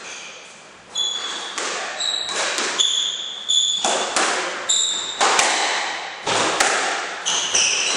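Squash rally: about a second in, the ball starts cracking off the rackets and the walls, roughly once every half second to second, each hit echoing around the court. Short high squeaks of shoes on the court floor come between the hits.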